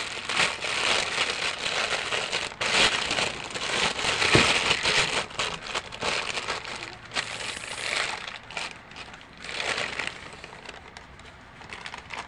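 Thin clear plastic bag crinkling and rustling as it is handled and pulled open, most intense about four seconds in and dying down over the last couple of seconds.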